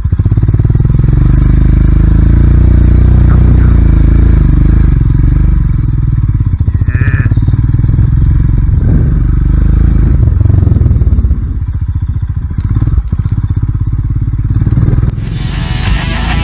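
Royal Enfield Himalayan's single-cylinder engine running under throttle as the bike rides a dirt trail, easing off briefly a little after the middle. Rock music comes in near the end.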